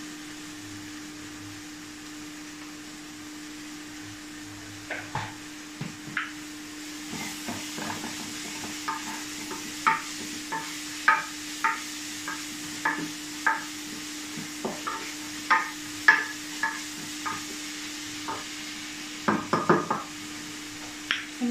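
Wooden spoon stirring food in a nonstick pot, knocking against the pot in irregular taps, several a second at times, over a faint sizzle of frying and a steady low hum.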